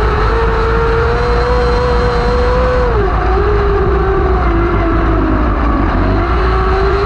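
A 600cc micro sprint's motorcycle engine running hard, heard from on board. The revs hold high and steady, drop about three seconds in, and climb back up near the end.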